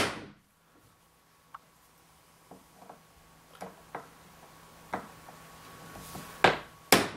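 Claw hammer striking a nail set to sink a proud brad nail flush into a wooden door: two sharp strikes about half a second apart near the end. Before them come a sharp click at the very start and a few faint ticks as the tools are handled.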